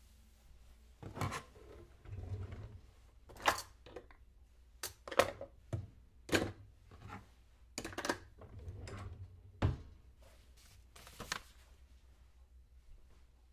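Kitchen clatter: dishes, utensils and cookware being handled and set down, making about ten irregular knocks and clinks spaced a second or so apart, with soft low rumbling between some of them.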